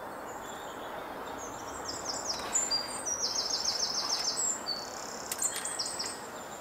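A small songbird singing high, quick phrases: a few down-slurred notes, then a fast trill of about ten notes in a second, and another short phrase near the end. A steady outdoor hiss runs underneath.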